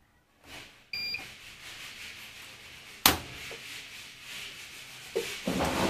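Bosch washing machine's control panel beeping once as its start button is pressed for an extra spin-and-drain cycle, followed by a steady scratchy rasping noise and a single sharp click about three seconds in.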